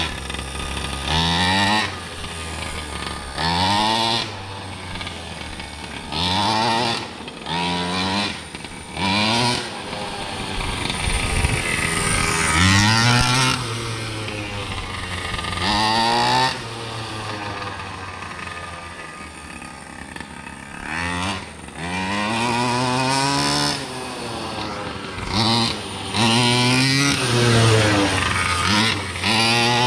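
Gas two-stroke engine of a large-scale Primal R/C Raminator monster truck being driven hard, revving up and dropping back in repeated bursts of one to two seconds as the throttle is blipped. The engine is still in its break-in period.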